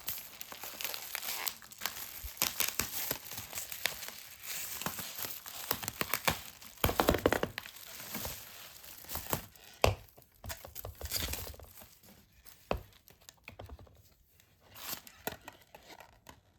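Plastic or paper packaging crinkling and tearing as it is handled, with a sharper knock about ten seconds in. The rustling thins out near the end and stops abruptly.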